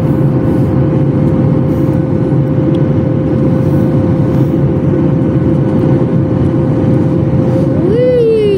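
Steady airliner cabin noise in flight: a continuous roar of jet engines and airflow with a steady hum tone running under it. Near the end a person's voice starts up, rising and then falling in pitch.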